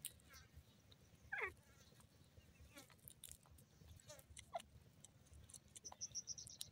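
Near silence with faint animal calls: one short call falling in pitch about a second and a half in, a few fainter falling chirps after it, and a quick run of high chirps near the end.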